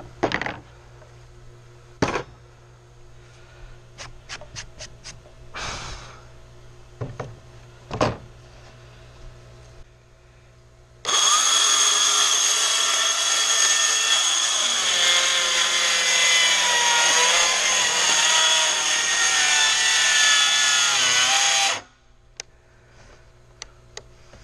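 Sharp clicks and knocks as the aluminium guide track and saw are handled and set in place, then, about eleven seconds in, a circular saw riding on the guide track runs and cuts along the wooden door boards for about ten seconds. It stops abruptly.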